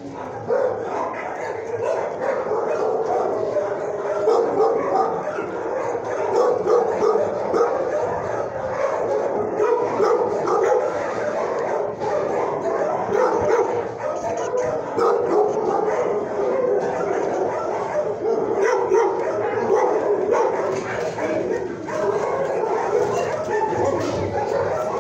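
Many shelter dogs barking and yelping together in a continuous din that never breaks.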